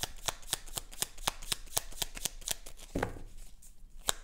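A deck of tarot cards being shuffled by hand: quick papery clicks, about six a second. The clicks stop about three seconds in with a soft thump.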